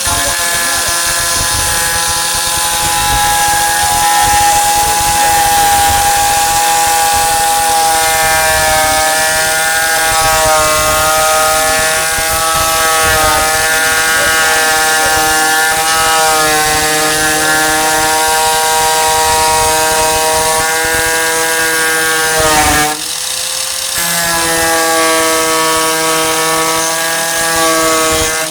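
Electric angle grinder with a thin cut-off disc running at high speed, cutting into sheet-steel tailgate panel. Its whine dips in pitch as the disc bites into the metal, sags sharply about 23 seconds in, then comes back up to speed.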